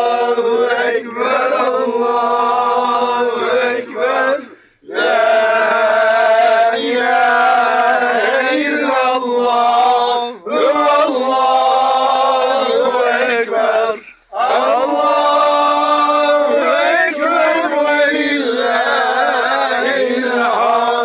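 A group of men chanting Islamic devotional phrases together in four long, drawn-out phrases, with brief pauses for breath between them.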